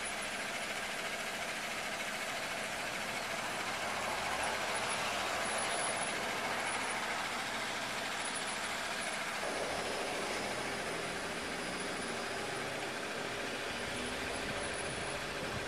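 GMC pickup truck engine idling steadily under an even outdoor hiss.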